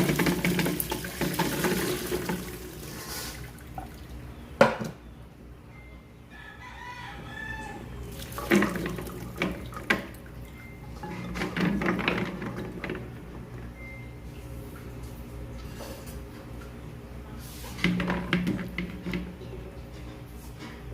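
Water splashing and pouring in several bursts of a second or two each, as in washing in a basin or sink, with a rooster crowing faintly in the background.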